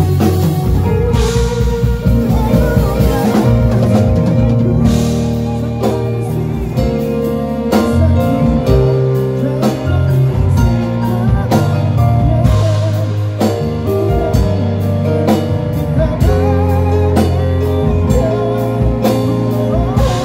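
A band playing together in rehearsal: rich extended jazz-gospel chords on a stage synthesizer keyboard over electric guitar, steady low bass notes and a drum kit with cymbal hits, running continuously.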